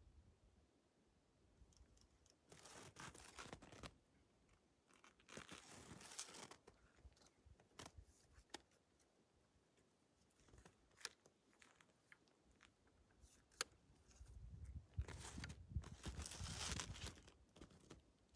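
Faint crunching, rustling noises in three short bursts, with a few sharp clicks between them.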